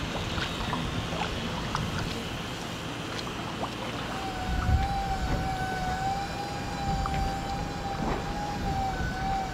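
Outdoor marina ambience: a steady, uneven low rumble, and from about four seconds in a level, slightly wavering high tone that holds to near the end.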